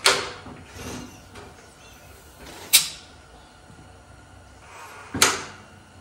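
Four-cylinder engine of a 1944 Allis-Chalmers B being turned over slowly by hand, with three sharp metallic snaps about two and a half seconds apart: the magneto's impulse coupling tripping as a piston comes up near top dead center.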